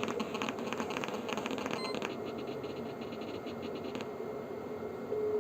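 Rapid buzzing clicks from a speaker driven by a TDA2030A amplifier while a SIM800C GSM module places a call, typical of GSM transmit interference picked up by the audio amplifier. The clicks die away about four seconds in, and a steady single tone starts near the end as the call begins to connect.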